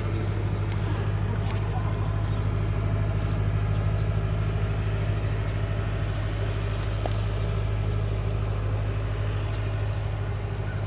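Tractor engine idling steadily, a low even hum, with a few faint clicks over it.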